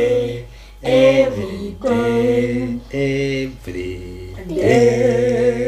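Children singing a simple praise song to Jesus together, without accompaniment, in short phrases of long held notes, the last note drawn out longer.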